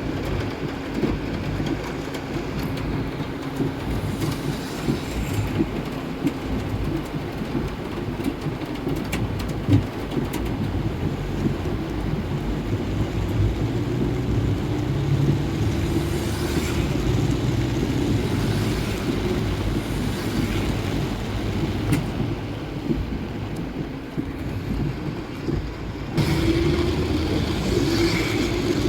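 A vehicle driving: steady engine and road noise, with the engine note shifting and rising in places and getting louder about 26 seconds in.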